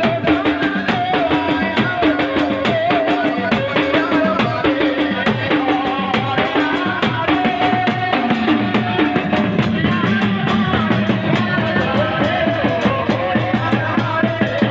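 Loud devotional folk music with a steady drum beat and percussion under a wavering melody line, played over a sound system.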